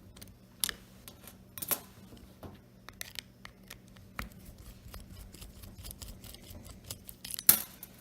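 Small metallic clicks and scrapes of a Phillips screwdriver loosening a terminal screw inside an Oster 76 clipper. There are a few sharper knocks, the loudest near the end, and a run of fine rapid ticks through the middle.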